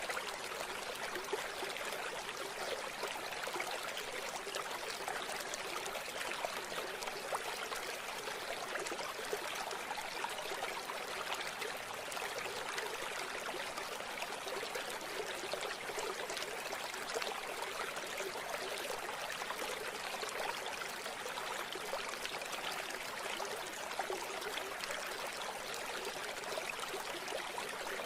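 River water flowing and splashing over stones, a steady rushing and trickling.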